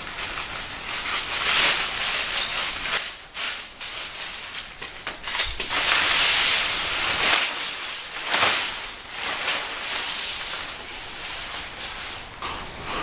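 Nylon tent fabric rustling and crinkling as an MSR Stormking tent is pulled out of its stuff sack and spread flat, in several loud swells of rustling.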